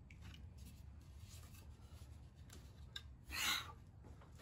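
Low steady hum with a few faint handling clicks and one brief rubbing swish a little past three seconds in.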